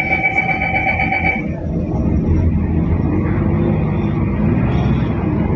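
Mercedes-Benz OC500LE city bus heard from inside the cabin: a steady electronic tone sounds for about the first second and a half, and then the engine drone grows louder from about two seconds in as the bus pulls away. The engine note is one that the rider finds unusually metallic, "like a big metal box".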